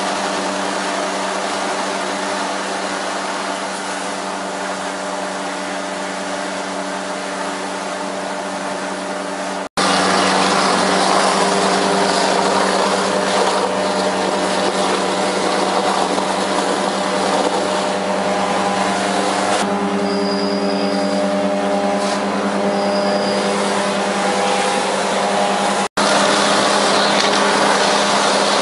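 Vermeer trailer-mounted vacuum excavator running steadily: a constant engine hum under the rush of air through the suction hose as it sucks water and debris out of a catch basin. The sound breaks off sharply about ten seconds in and again near the end, and it is louder after the first break.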